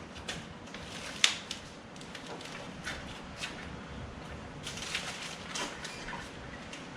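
Irregular workshop handling noises as a new lathe is worked free of its shipping crate and pallet: scattered clicks and knocks, a sharp click about a second in, and a burst of scraping and knocking around five seconds in.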